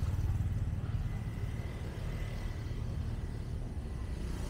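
Low, steady rumble of motorbike and street traffic, easing off slightly over the first couple of seconds, with a faint thin whine in the middle.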